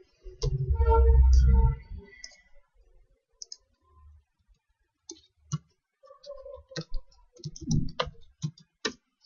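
Computer keyboard typing and mouse clicks, coming as scattered separate clicks. A louder, low-pitched hum with a couple of steady tones runs from about half a second to two seconds in.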